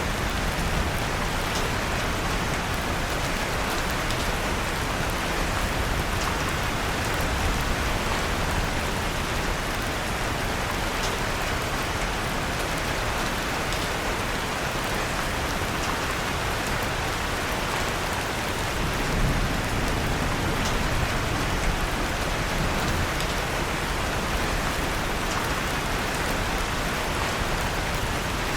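Steady rain falling, with faint small crackles from a wood fire in a fireplace scattered through it.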